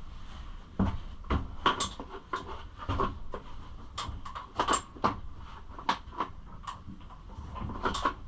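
Irregular clicks and knocks, a dozen or so spread unevenly, of a part being handled and pushed into place on a Kawasaki KLX110 pit bike.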